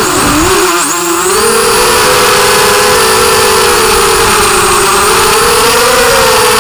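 Whine of a 5-inch FPV quadcopter's four 2204 brushless motors and 5x4.5 propellers, heard from the onboard camera. At the start the pitch falls sharply and wavers as the throttle drops, then climbs back within about a second and a half and holds steady, rising a little near the end.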